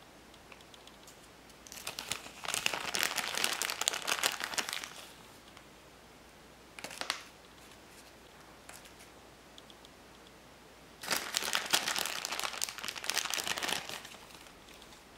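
Crinkly plastic handling noise from a Popin' Cookin candy kit as its powder is worked: two spells of a few seconds each, with a short burst between them.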